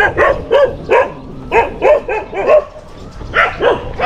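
Stray-dog barking: a rapid string of loud barks, a few a second, with a short lull about three seconds in before it starts again.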